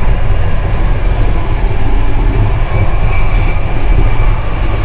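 Passenger train running, a steady low rumble heard from inside the carriage.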